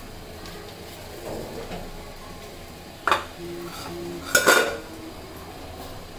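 Aluminium lid and metal bowl clattering as the lid comes off the pitha pan and the cookware is handled. There is a sharp clink about three seconds in with brief metallic ringing after it, then a cluster of louder clanks about a second later.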